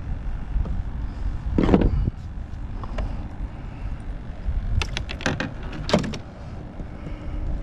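Handling clatter of fishing gear on a plastic kayak: a knock about two seconds in, a single click, then a quick cluster of sharp clicks and rattles around five to six seconds in, over a steady low rumble.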